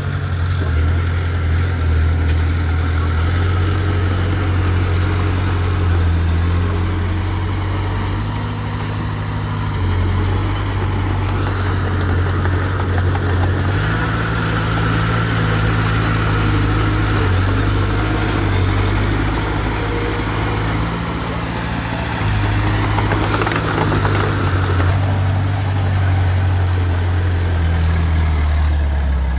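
Heavy diesel engine of earthmoving machinery running with a low drone that rises and falls with load, with a higher whine over a stretch in the middle.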